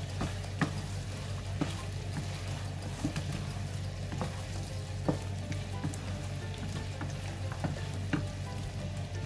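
Chicken wings and drumsticks sizzling in a bubbling butter sauce in a frying pan: a steady hiss with irregular sharp pops and spits, over a steady low hum.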